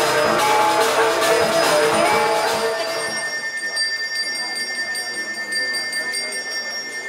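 Balinese gamelan music with bright bell jingling, which cuts off about three seconds in. A high-pitched bell then rings on steadily over a faint murmur of voices.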